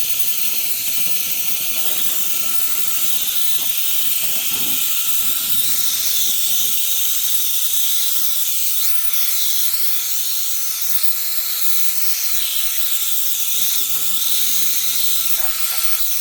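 Small portable fan used as a blower, running steadily at high speed: a continuous hissing rush of air with a high whine from its motor.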